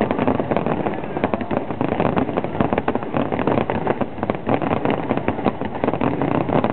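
Fireworks finale: dense, rapid bangs and crackles of many shells bursting at once, going on without a break.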